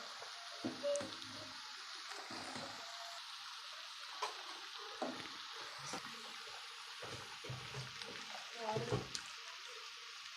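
Hot herbal decoction being poured and strained from the cooking pot into another vessel: a steady hiss of liquid with scattered knocks and scrapes of metal pots and utensils, busiest near the end.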